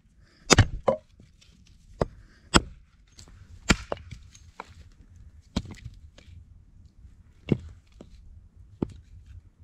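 Axe splitting firewood rounds on a chopping block: about seven sharp wooden chops and knocks at irregular intervals of one to two seconds, the loudest about half a second in.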